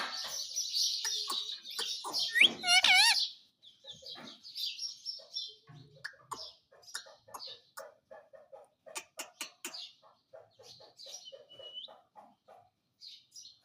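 Pet parrot calling harshly for about three seconds, with a few wavering whistles, then a long run of quick clicks and chattering with a short whistle near the end.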